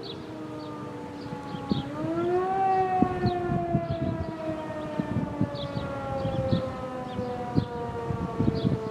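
American Signal T-128 outdoor warning siren sounding the wailing Attack signal, several tones together: the pitch rises quickly about two seconds in, then slowly falls.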